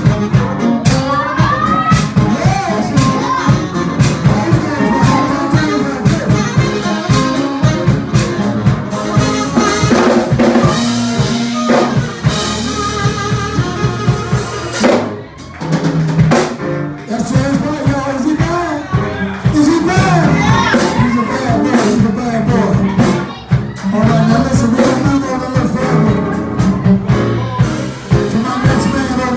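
Live soul band playing, the drum kit keeping a steady beat with snare rimshots and bass drum under a wavering melody line.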